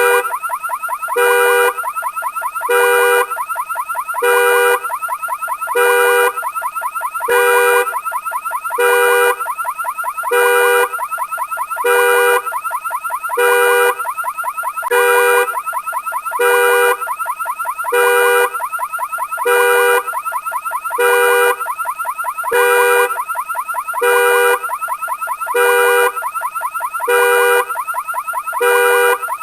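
Vehicle anti-theft alarm sounding: a fast warbling electronic tone runs on without a break, with a louder, lower blast about every second and a half.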